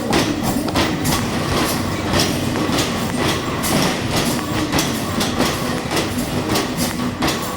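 Arcade basketball machine in play: basketballs striking and bouncing in quick, irregular succession over a continuous rumbling clatter.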